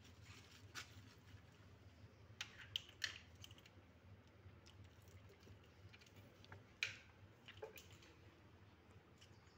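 Near-quiet room with a few scattered light clicks and taps from kittens scampering and playing on a hard stone floor, the sharpest a cluster about two and a half to three seconds in and one near seven seconds.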